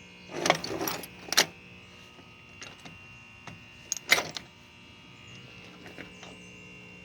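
Handling noise of a small metal part: a few short bursts of rattling and clinking, the loudest about four seconds in, over a steady electrical hum.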